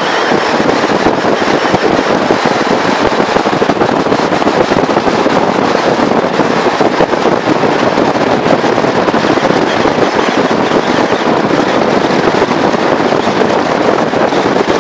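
Steady loud rush of wind buffeting the camera microphone on a mountain bike descending a paved road at over 60 km/h.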